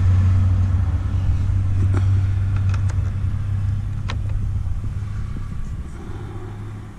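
Low, steady rumble of a motor vehicle that slowly fades away, with a few light clicks over it.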